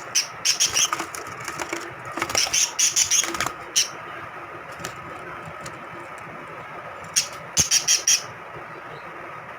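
Lovebirds giving rapid, sharp, high-pitched chirps and squawks in three quick clusters: about half a second in, again from about two to four seconds, and near the end.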